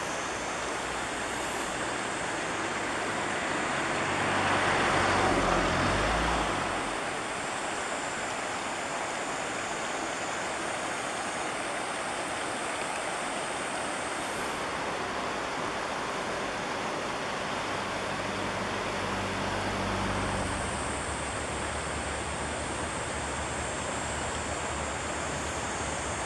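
Steady rushing of a shallow, stony river. A motor vehicle passes about five seconds in, and a fainter one about twenty seconds in.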